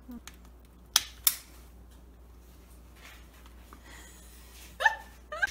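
Trigger of a spritz cookie press clicking sharply twice, about a third of a second apart, as it is squeezed to push dough onto a baking sheet. A short vocal sound follows near the end.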